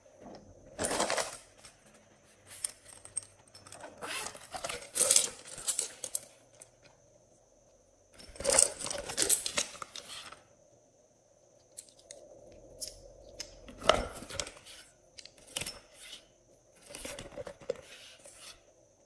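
Hand-handling noises as metal crown bottle caps are taken from a pouch and set down on slime in a glass tray: several short bursts of rustling and clicking with pauses between them.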